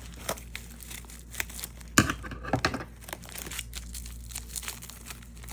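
Plastic bubble-wrap packaging being crinkled and torn open by hand: a run of small crackles, with the sharpest and loudest crack about two seconds in.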